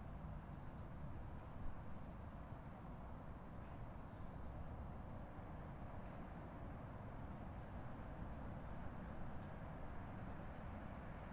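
Outdoor park ambience: a steady low rumble with a few faint, short high bird chirps.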